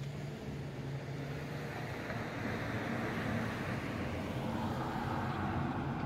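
Traffic noise: a vehicle running on the road close by, its engine hum and road noise swelling to a peak over several seconds.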